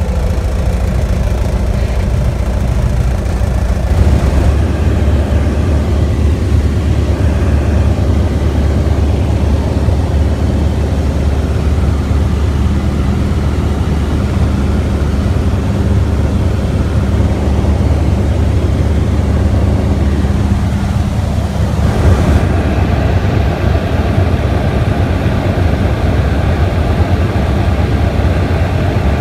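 Small plane's engine and propeller droning steadily inside the cabin, getting louder about four seconds in as power comes up.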